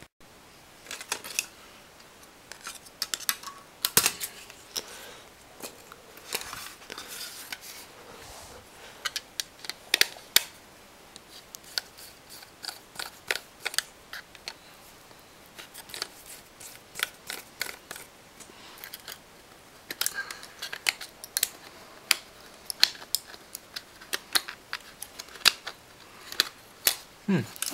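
Scissors snipping, with many short, irregular sharp clicks from the floppy drive's small metal and plastic parts being handled.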